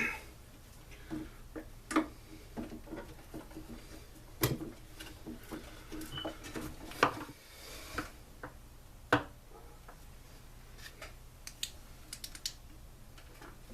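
Irregular clicks and knocks of hand tools against metal as the muffler is unbolted from a backpack blower's two-stroke engine, a few sharper knocks a couple of seconds apart and lighter ticks near the end.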